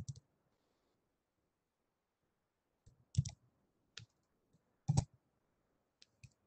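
A handful of separate computer mouse and keyboard clicks, about one a second through the second half, the loudest one near the end.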